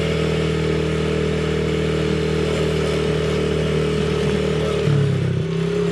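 An engine running at a steady, low speed, its pitch dipping slightly about five seconds in.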